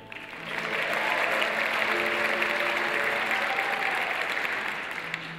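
Audience applauding at the end of a song, swelling within about half a second and thinning out near the end.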